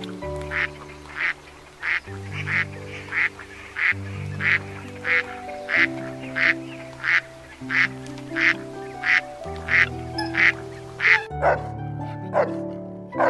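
Ducks quacking in a steady run, one short quack about every two-thirds of a second, over background music with held notes. Near the end a dog barks a few times.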